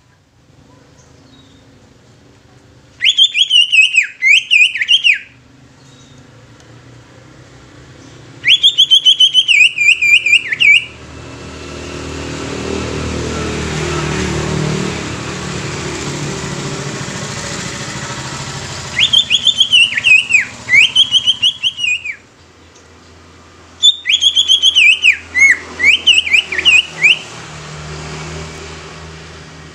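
Greater green leafbird (cucak ijo) singing in four bursts of rapid, sharp whistled notes, each two to three seconds long. In the middle, the engine noise of a passing vehicle swells and fades.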